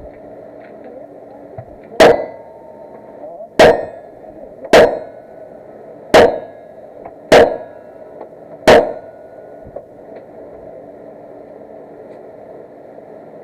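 Six gunshots at an uneven pace, about one every one and a half seconds, each a sharp crack with a short ringing tail, over a steady background hum.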